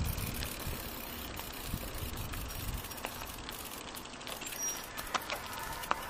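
Bicycle rolling on asphalt, picked up by a handlebar-mounted camera: steady tyre rumble and wind noise with a few light rattles and clicks from the bike, easing off toward the end as the bike slows.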